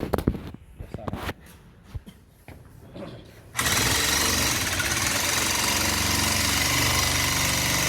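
A few clicks and knocks of gas welding equipment being handled, then about three and a half seconds in a loud, steady hissing buzz of the welding starts suddenly and keeps going.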